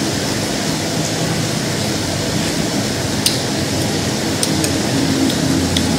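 Wok of chicken and greens cooking on an electric stove: a steady hiss, with a few faint clicks in the second half.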